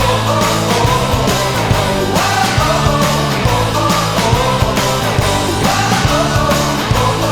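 Loud rock music with singing: a hockey goal song.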